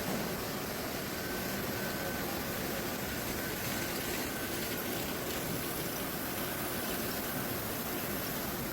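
Steady machinery noise with an even hiss and no distinct strokes, and a faint high tone that comes and goes.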